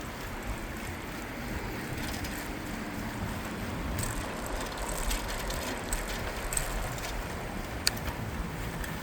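Riding a bicycle through the city: a steady rumble of tyres and wind on the microphone, with light clicks and ticks in the second half and one sharp click near the end.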